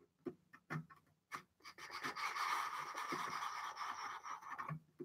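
Plastic speedcube being turned by hand. First a few separate clicks of single turns, then about three seconds of fast continuous turning, a steady plastic rasp that stops shortly before the end.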